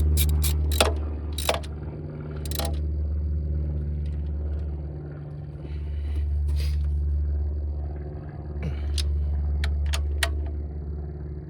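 Hand tools working on fasteners under the hood: a quick run of ratchet-like clicks near the start and a few scattered metal clicks later, over a loud low hum that swells and fades every few seconds.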